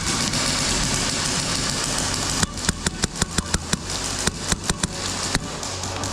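Airsoft guns firing in a speedsoft game: a steady noisy hiss, then from about two and a half seconds in a quick run of sharp shots, about five a second, lasting some three seconds.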